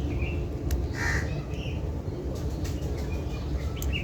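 A crow cawing a few times, loudest about a second in, over a steady low rumble.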